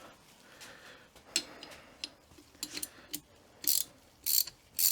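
Ratcheting wrench clicking as bolts on the limited-slip differential are run down to compress the clutch pack's spring washers. Scattered light clicks at first, then three short bursts of rapid clicking near the end.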